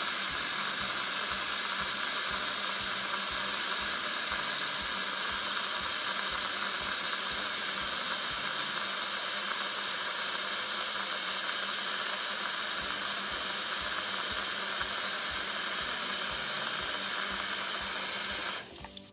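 Tap water running from a bathroom faucet into a filling sink: a steady splashing hiss that cuts off suddenly near the end.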